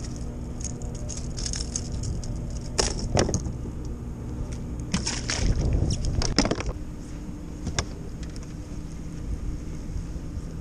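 Fishing gear handled on a plastic kayak deck: a few sharp clicks and metallic jangles, clustered about three seconds in and again from about five to six and a half seconds, with one more near eight seconds, over a steady low hum.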